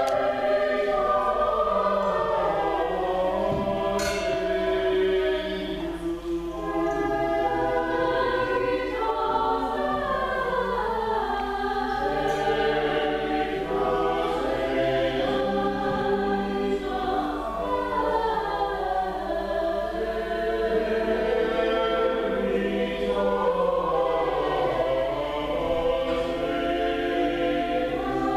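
Church choir singing a hymn, several voices holding long sustained notes.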